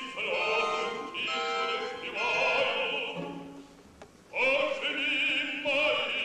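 Operatic bass voice singing sustained phrases with a wide vibrato. The singing breaks off briefly a little past the middle, then comes back strongly.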